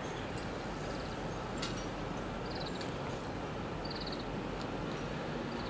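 Steady low outdoor rumble without any clear tone, with a few faint clicks and two short high chirps about two and a half and four seconds in.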